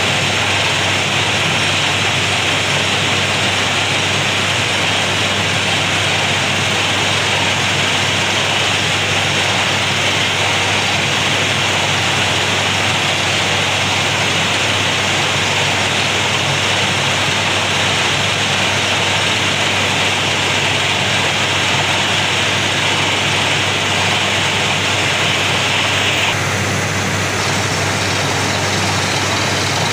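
Borewell drilling rig running steadily, a low engine hum under a loud hiss, the hiss easing suddenly about 26 seconds in.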